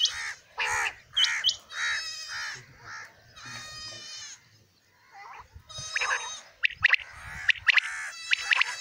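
Caged quails calling over and over, several short calls overlapping in quick succession, with a brief lull about halfway through.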